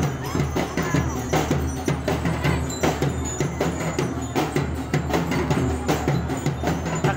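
Drum and lyre corps playing a marching tune: drums beat a steady, driving rhythm under the ringing bell lyres.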